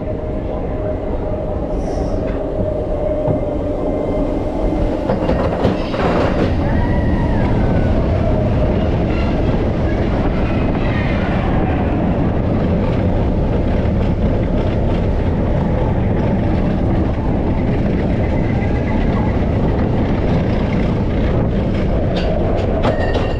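Expedition Everest's steel roller coaster train rolling along its track: a steady, loud rumble of the wheels with clattering and short metallic squeals.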